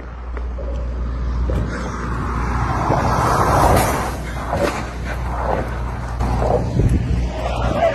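Tesla Model Y driven fast past close by, with no engine note, only its tyres rushing over the pavement as it slides, swelling to the loudest point about three to four seconds in.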